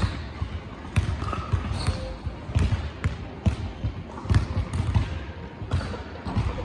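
Basketball bouncing on a hardwood gym floor: a string of sharp thumps, irregular and roughly one a second, in a large gym.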